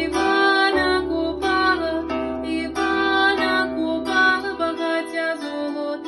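Music: a melody on a plucked string instrument over a sustained low bass. The bass drops out near the end.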